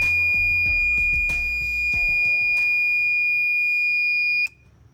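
Homemade magnetic door alarm's buzzer sounding one steady high-pitched tone, under background music with a beat; both cut off suddenly about four and a half seconds in.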